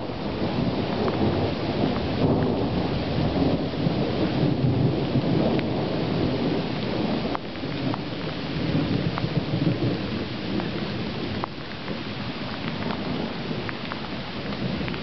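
Heavy rain falling with a deep rumble of thunder that swells and fades, and scattered ticks of drops hitting nearby.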